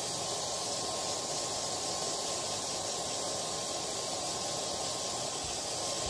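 Hair dryer blowing steadily: an even rush of air with a thin, steady whine running through it.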